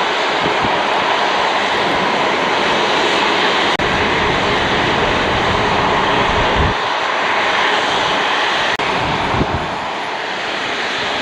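Boeing 737-800 freighter's CFM56-7B jet engines heard loud and steady as the aircraft arrives, easing slightly near the end. There are a couple of brief low thumps about two-thirds of the way through.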